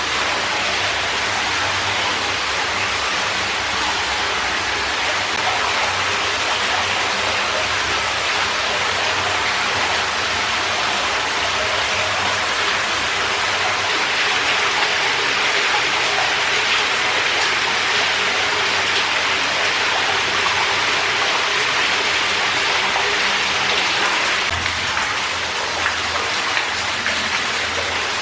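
Cave ambience: a steady, dense rush of falling and running water, like rain or a small cascade, swelling slightly midway.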